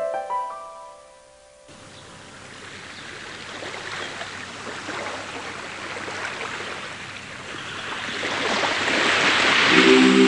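A few piano notes dying away, then the rush of ocean surf swelling steadily louder. Near the end a sustained hummed or choral tone comes in over it.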